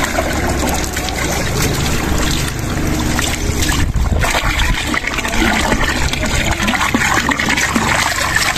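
Water pouring steadily from a hose pipe, splashing over a child's head and into a water-filled plastic drum.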